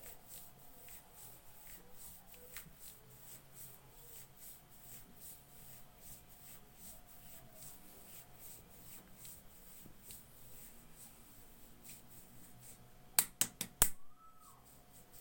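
Hands massaging skin: soft rubbing with small clicks two or three times a second, then a quick run of four or five sharp, loud clicks about thirteen seconds in.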